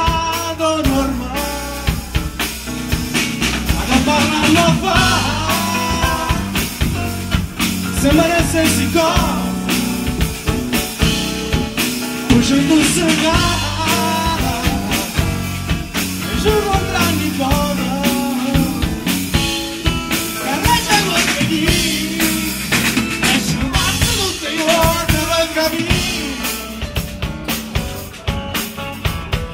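Live band playing: a male voice singing over two electric guitars and a drum kit.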